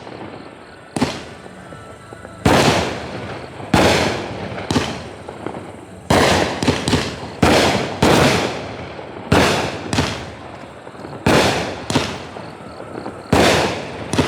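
Consumer firework shots going off one after another, more than a dozen of them, about one a second and sometimes in quick pairs. Each is a sharp bang that fades away over about a second.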